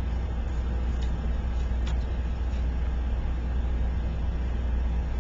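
Steady low hum with an even background hiss, and a couple of faint clicks about one and two seconds in.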